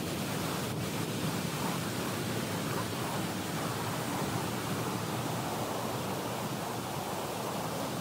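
Shallow river rushing over rocks: a steady, even wash of moving water.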